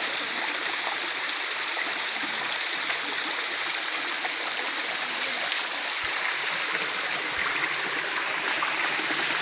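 Flowing water running steadily: an even, unbroken rush that stays the same all through.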